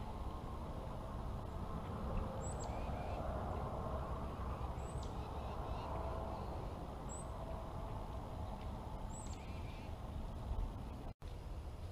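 Wild birds calling outdoors: four short, high, down-slurred calls about two seconds apart, over a steady low rumble of wind on the microphone. The sound cuts out for an instant near the end.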